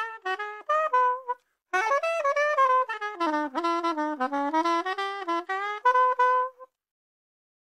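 Unaccompanied soprano saxophone playing blues phrases. A short run breaks off about a second and a half in, then a longer phrase dips low and climbs back up to end on a held note, after which the playing stops.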